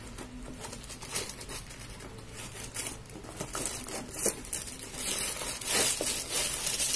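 Plastic packaging crinkling and rustling as a box is opened and a plastic-bagged item is pulled out, with many small crackles that grow louder and busier in the last couple of seconds.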